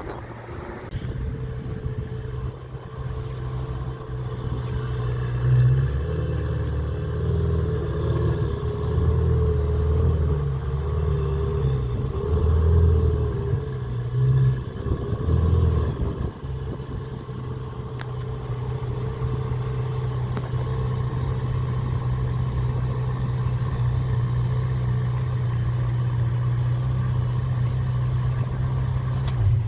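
Ferrari 488's twin-turbo V8 running while the car stands still, swelling unevenly several times in the first half, then settling to a steady idle.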